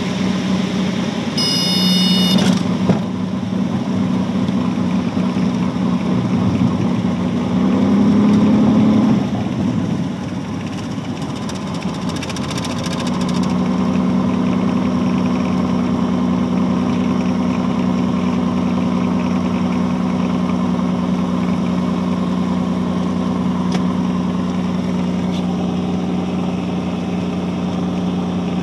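Light single-engine aircraft's piston engine and propeller, heard from inside the cockpit, running at low power through the landing rollout and taxi. A short, high-pitched tone sounds about two seconds in, and the engine briefly rises in pitch around eight seconds before settling to a steady idle.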